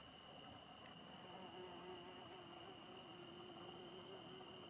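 A fly buzzing in flight around the dung pile, a faint hum whose pitch wavers, from about a second in until near the end.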